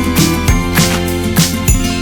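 Background music: an upbeat instrumental with a steady beat and bright, tinkling notes.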